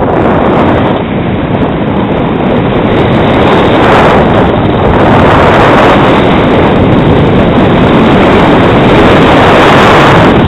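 Wind rushing over the microphone of a skier's camera during a fast descent, a loud, dense, steady buffeting noise that grows a little louder about four seconds in.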